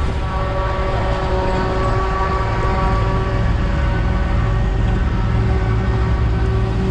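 Heavy farm machinery running steadily: a diesel engine's low rumble with a constant droning hum on top, no change in speed.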